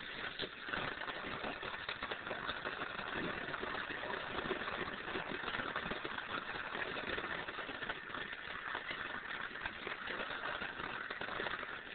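Gas welding torch flame running with a steady hiss, dropping off near the end.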